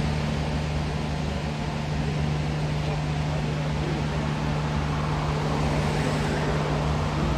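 Steady vehicle noise heard from inside a car moving slowly through a road tunnel: a constant low engine drone over even road and tyre rush.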